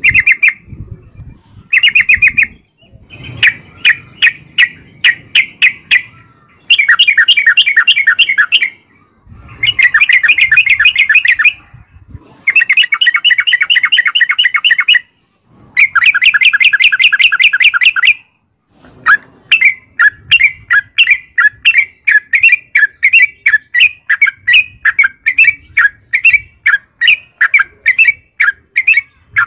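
Yellow-vented bulbul (trucukan) singing its fast, rolling song: loud bursts of rapidly repeated bubbly notes, each a second to three long, with short pauses between. About two-thirds of the way through, it changes to a long run of separate chirps, about three a second.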